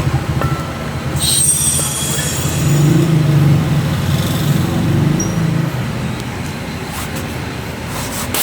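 A steady, low, engine-like rumble with a fine regular pulse, like a motor running. A brief hiss comes about a second in, and a sharp crack comes at the very end.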